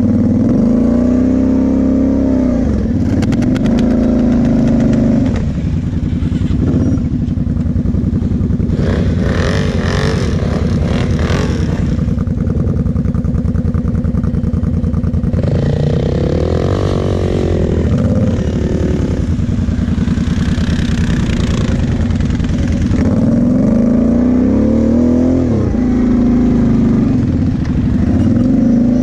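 Quad bike (ATV) engine running while being ridden, its revs rising and falling several times, with stretches of rattling about a third of the way in and again past the middle.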